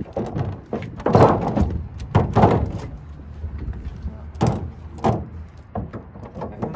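Heavy bangs and thuds on sheet-metal ductwork, about half a dozen irregular blows with short ringing tails, as a plenum box is knocked apart.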